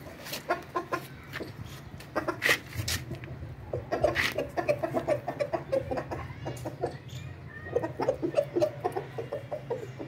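Chickens clucking in quick runs of short notes while feeding, with a few sharp clicks, the loudest about two and a half and four seconds in.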